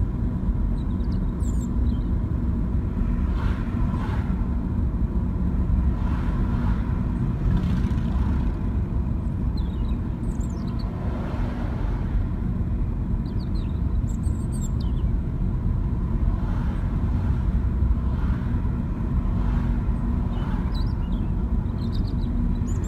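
Car driving at road speed: a steady low engine and tyre rumble. A few short, high, falling chirps come through now and then.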